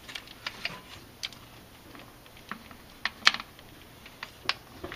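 Ratchet wrench with an 11 mm socket clicking irregularly while backing out valve cover bolts, with light metal clinks of the socket; the sharpest click comes a little past halfway.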